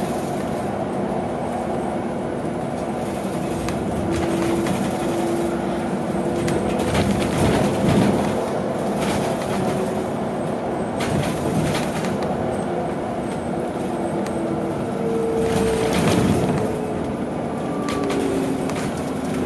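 Cabin noise inside a BYD electric bus under way: steady road noise with a few knocks and rattles, over the electric drive's faint whine, which changes pitch and falls near the end as the bus slows.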